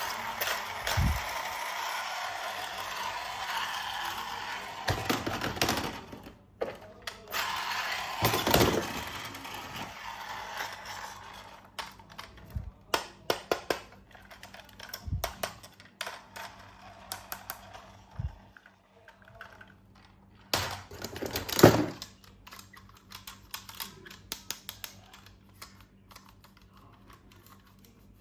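Plastic toys and packaging being handled: rustling for the first few seconds, then a long run of scattered clicks and taps, with one louder knock about twenty-one seconds in.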